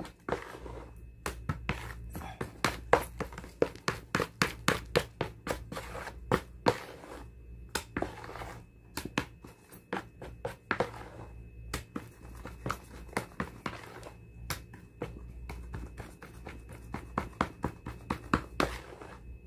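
Plastic spatula stirring a thick, wet bait dough in a plastic basin, scraping and knocking against the basin's sides in quick, irregular clicks and scrapes.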